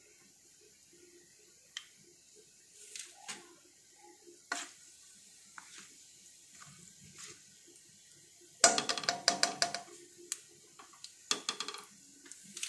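A ladle stirring whole spices in oil in a kadhai, scraping and clinking against the pan. Two bursts of rapid clattering come near the end, the first the loudest.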